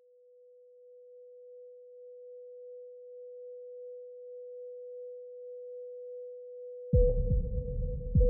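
Heart-monitor flatline: one steady beep that swells slowly, the sign that the heart has stopped. About seven seconds in, a heavy low thump from a defibrillator shock cuts in, with a low rumble beneath it, and a second thump comes near the end while the tone carries on.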